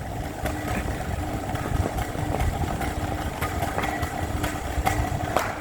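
A steady low mechanical rumble, like a motor running, with a faint on-and-off hum and scattered light clicks.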